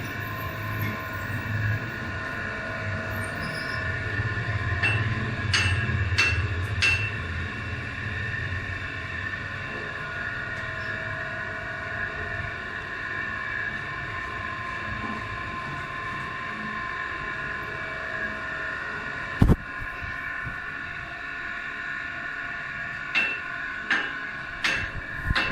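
A machine running steadily with a high whine of several held tones and a low hum that fades about ten seconds in, with a few sharp knocks, the loudest about three-quarters of the way through.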